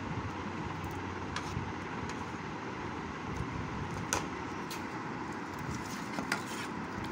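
Steady background noise with a few short clicks of a metal spoon against a stainless steel bowl as orange slices are tossed in marinade; the sharpest click comes about four seconds in.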